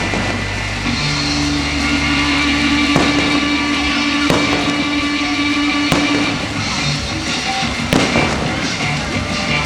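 Fireworks shells bursting in several sharp bangs a second or two apart, over music with long held notes.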